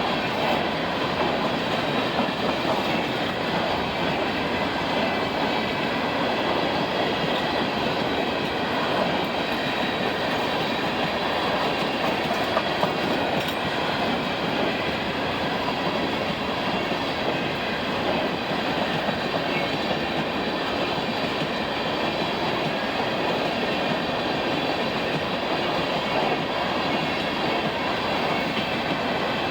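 Canadian Pacific grain/ballast freight train rolling steadily past, its car wheels clattering and rumbling on the rails.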